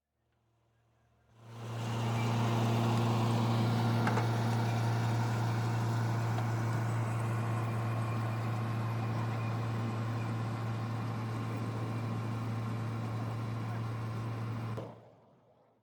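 Tractor engine running steadily with a low, even hum. It fades in about a second and a half in and cuts off shortly before the end.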